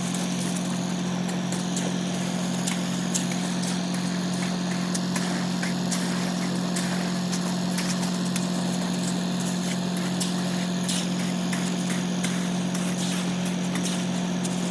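An engine running steadily at a constant pitch, with scattered small clicks and knocks over it.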